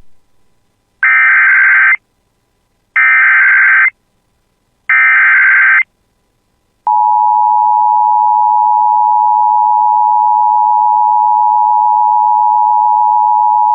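Emergency Alert System SAME header: three short bursts of warbling digital data tones, each about a second long with a second's gap between them. About seven seconds in, the steady two-tone EAS attention signal starts and holds, marking the start of a severe thunderstorm warning alert.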